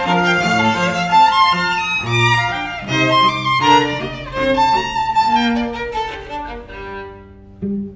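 Background music played on bowed strings, a melody of changing notes that dies away near the end.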